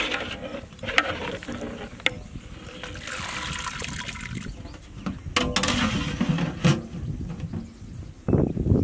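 A long metal ladle stirring potato strips in a pot of hot water and lifting them out, with water splashing and draining back off the ladle. The ladle clinks sharply against the metal pot about a second in, again at two seconds, and once more after five seconds.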